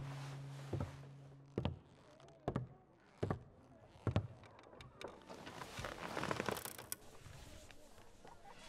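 Sharp knocks at a fairly even pace, about one every 0.8 seconds, as the last held note of the music fades out. A short rustle comes about six seconds in.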